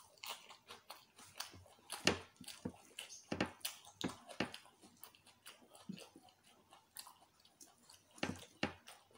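A person chewing food close to the microphone: irregular smacking and crunching mouth noises, a few a second, with a louder one about two seconds in and a pair near the end.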